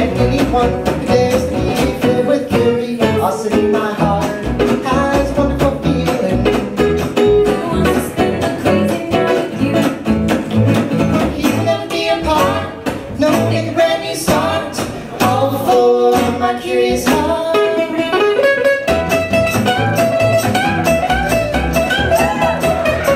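Live acoustic band music: guitars and upright bass playing, with singing.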